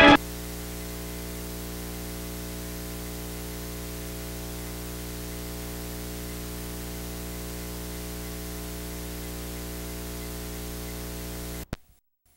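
Organ music cuts off at the very start. What follows is steady analog soundtrack hiss with electrical hum from an old film-to-video transfer, which cuts off abruptly with a click near the end.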